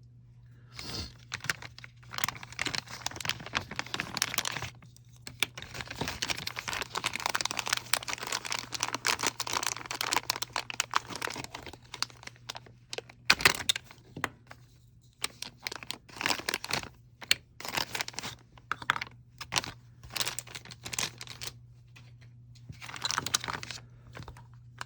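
Packaging crinkling and tearing as it is handled and opened, with scattered clicks and knocks. The crinkling is dense for the first half, then comes in short bursts, with a steady low hum underneath.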